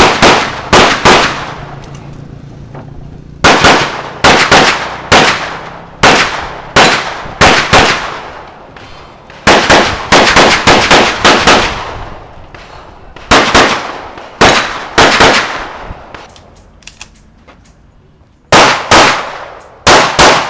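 Pistol fired in quick pairs and short strings during a practical shooting course of fire. Each shot is sharp with a brief echo, and there are gaps of one to three seconds between groups. The longest string comes about ten seconds in.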